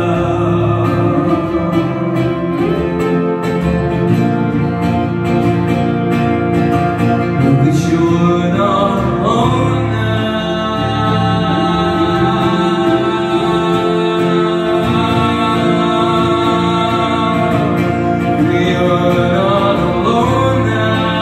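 Live band playing a song: drum kit, electric guitars and an acoustic guitar, with a lead vocal sung over them.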